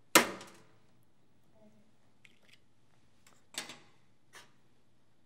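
Handling clatter of the disassembled breaker's plastic parts: one sharp clack with a short ring, then two lighter clicks near the end.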